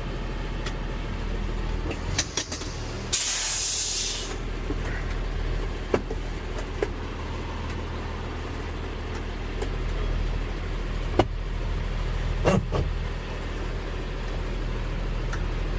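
Large rollback tow truck's diesel engine idling steadily with the PTO engaged. About three seconds in, a loud burst of air hiss lasts about a second, and a few sharp clicks follow later.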